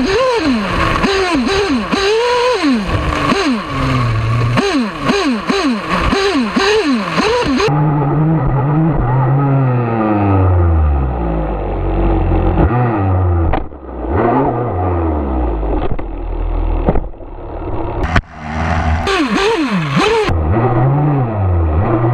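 Nova P5 nitro engine on an RC car, heard from on board. It revs in quick throttle blips for several seconds, settles to lower, slower-changing revs through the middle with brief dips, then blips again near the end.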